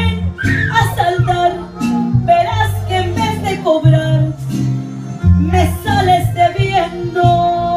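A woman singing karaoke into a microphone over a recorded backing track with guitar and bass.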